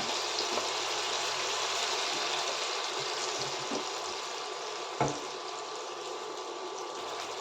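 Potato pieces sizzling as they fry in hot mustard oil in a pan: a steady hiss, with a single knock about five seconds in.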